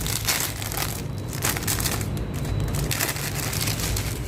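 Packaging being crinkled and rustled in irregular spurts while a bird toy is unwrapped by hand.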